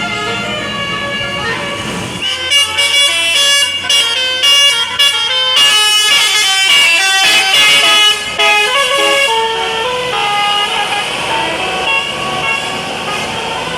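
A bus's telolet Basuri musical air horn playing a tune: a quick run of short notes at changing pitches from about two seconds in until about nine seconds, then going on more evenly.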